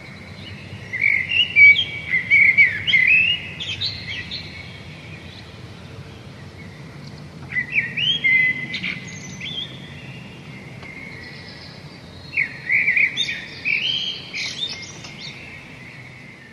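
Birds chirping and singing in three bouts of quick rising and falling notes, about a second in, around eight seconds in, and again near the end, over a steady low background hum.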